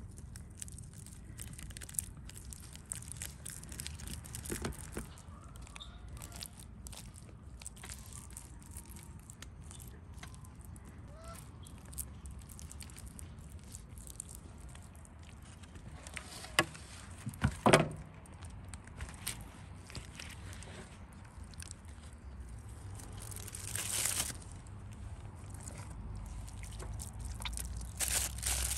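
Wet mud being patted and pressed by hand over foil-wrapped chicken, with soft squelches and small clicks. About two-thirds of the way through, a goose honks twice, briefly and loudly. Near the end comes the crinkle of aluminium foil being handled.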